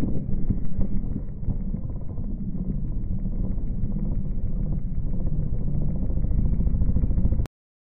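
Small gas RC car engine idling, heard through the car's onboard camera after it has crashed into a post. It cuts off suddenly near the end.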